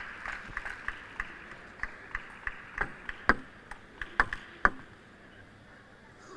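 Table tennis ball clicking sharply against the table and bats in quick, uneven succession, about three hits a second. The loudest hits come just before the clicking stops, about three-quarters of the way through.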